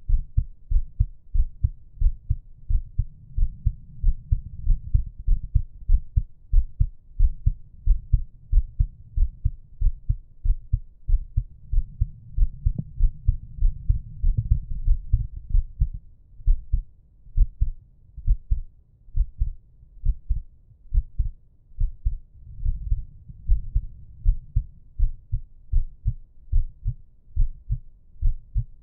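A resting human heartbeat recorded close up: a steady, even rhythm of low, dull thumps.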